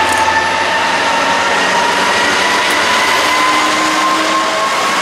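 Class 66 diesel-electric locomotive, with its two-stroke V12 engine, passing close by under power at the head of a freight train of box wagons. The sound is loud and steady, with a whine that rises slowly in pitch.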